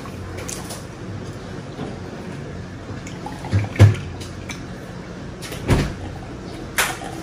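A person drinking iced water from a glass mug, with a few close, low gulping swallows, the loudest about four seconds in, and a couple of sharp clicks near the end.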